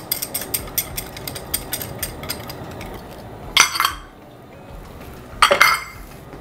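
Light rapid tapping and clinking of kitchen ware against a stainless steel saucepan, about four to five taps a second, followed by two louder clatters of metal utensils near the middle and end.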